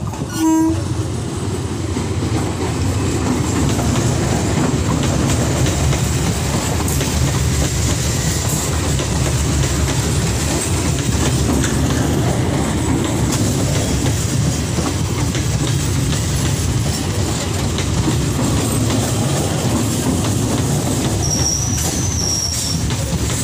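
Electric multiple unit (EMU) suburban train passing close by. It gives a short horn toot just after the start, then a loud, steady rumble and clatter of its wheels over the rails. A brief high squeal comes near the end.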